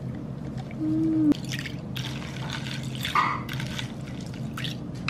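Coffee poured over ice cubes in a plastic tumbler, splashing and dripping, then ice clinking as a metal spoon stirs it. A brief low tone ending in a click sounds about a second in.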